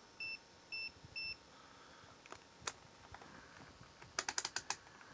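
Vichy VC97 digital multimeter beeping three times, short high beeps about half a second apart as its range button is pressed. Near the end comes a quick run of about seven sharp clicks, the meter's rotary selector switch being turned through its detents; these clicks are the loudest sounds.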